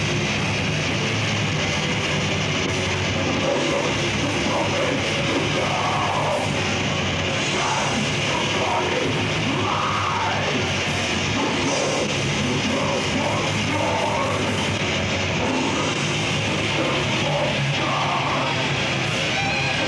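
Death metal band playing live, with distorted electric guitars and drums, and shouted vocals joining in from about six seconds in.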